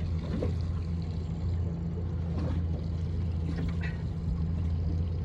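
Small fishing boat's motor running with a steady low hum, the boat creeping along while an angler fights a hooked fish.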